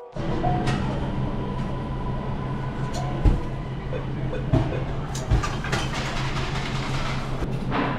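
Steady low mechanical hum with a steady background rush, and a few light knocks and clicks scattered through it.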